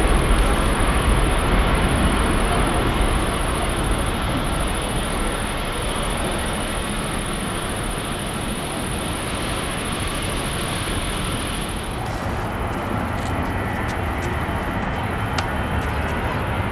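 Jet airliner engine noise: a broad, steady rumble that slowly fades over the first several seconds and then holds.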